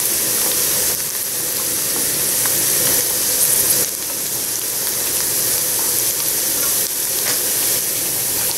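Sliced carrot and chopped onion sizzling steadily as they fry in butter and coconut oil in a nonstick frying pan, with a wooden spatula scraping and stirring them now and then.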